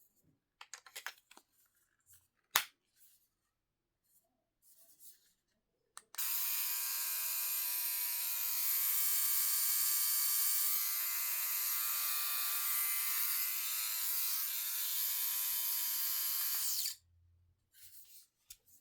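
A few handling clicks and taps, one of them sharp, then a MaxGroom electric hair trimmer switched on, its motor buzzing steadily for about eleven seconds before it is switched off and stops abruptly.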